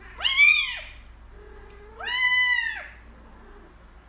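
A kitten meowing twice, high-pitched mews that rise and fall in pitch. The second call is a little longer and comes about two seconds after the first.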